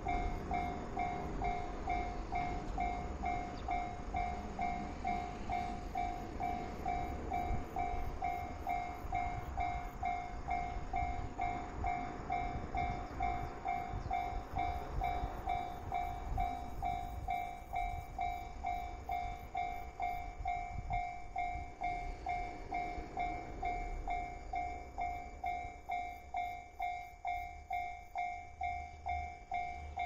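Japanese railway level-crossing warning bell ringing: a steady, rapid, evenly repeating electronic ding, the alarm that a train is approaching the crossing.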